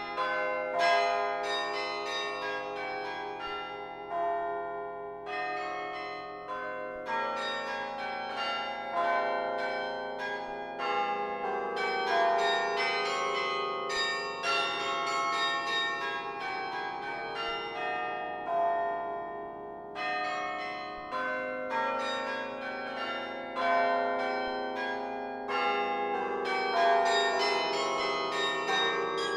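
Laura Spelman Rockefeller Memorial Carillon's bells played from the baton keyboard: a quick run of struck notes, many ringing on and overlapping one another.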